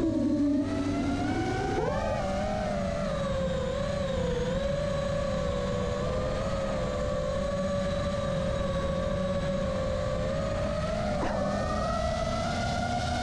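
iFlight Nazgul 5 five-inch FPV quadcopter's brushless motors and propellers whining under throttle, with wind rush. The pitch sits low at first, climbs sharply about two seconds in, then holds fairly steady with small wobbles as the throttle changes.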